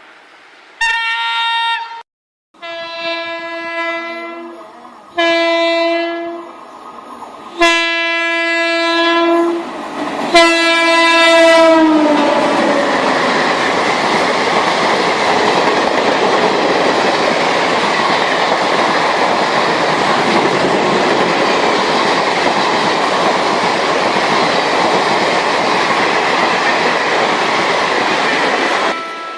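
An Indian Railways locomotive horn sounds about five blasts of a second or two each. The steady rush of a train passing at speed follows and cuts off abruptly near the end.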